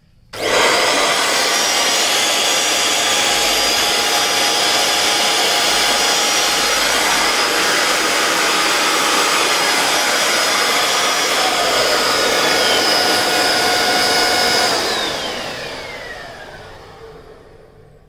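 Balzano handheld vacuum cleaner switched on: the motor starts abruptly and runs at a steady high whine. About fifteen seconds in it is switched off, and the motor spins down with a falling whine over a few seconds.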